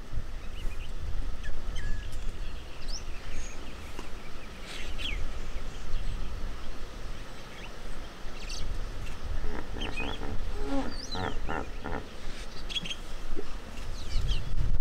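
Birds chirping in short rising notes over wind buffeting the microphone. About ten seconds in, a brief series of pitched animal calls repeats several times a second.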